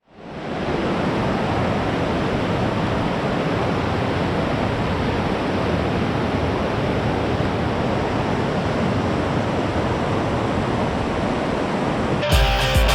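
Steady roar of falling water from a large waterfall, an even rush with no pitch that fades in at the start. Music comes in near the end.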